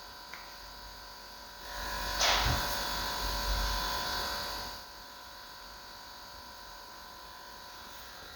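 A steady electrical buzz made of several fixed tones. A louder rushing noise with a low rumble swells in after about two seconds, then fades out about three seconds later.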